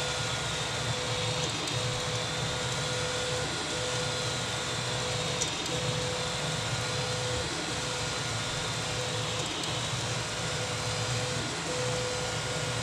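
A 3D printer's stepper motors whine as the toolhead sweeps back and forth across the bed during a BTT Eddy rapid bed-mesh scan. Each pass brings a steady tone that stops for a moment every one to two seconds as the head turns, over a steady background hum.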